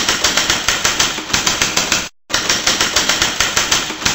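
Rapid, even clicking, about six clicks a second, used as the sound effect under a news intro; it breaks off for a moment about two seconds in, then starts again.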